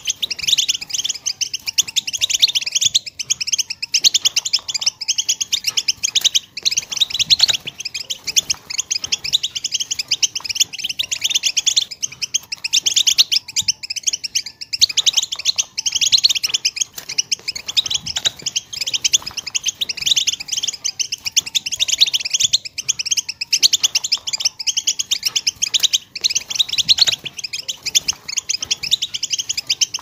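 A small finch singing a long, unbroken song of fast, high twittering chirps and trills.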